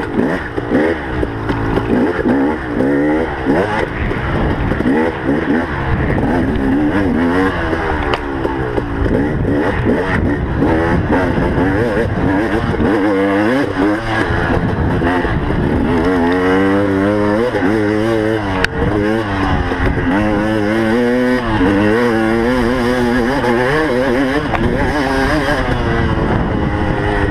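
Motocross motorcycle engine revving hard under racing throttle, its pitch rising and falling over and over as the rider opens and closes the throttle and shifts.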